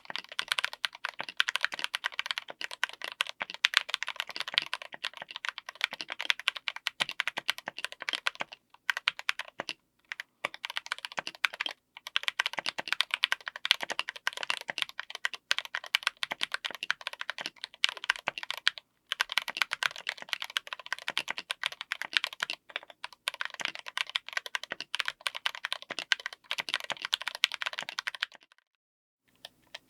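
Fast typing on a mechanical keyboard with Gateron G Pro Yellow linear switches mounted on an FR4 plate: a continuous clatter of keystrokes with a few brief pauses, stopping about a second before the end.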